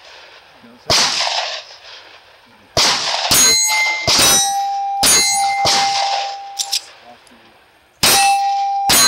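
About eight pistol shots from a Springfield Armory 1911 in 9mm: one about a second in, a quick string of five between about three and six seconds, then two more near the end. Most are followed by the ringing clang of a steel plate target being hit.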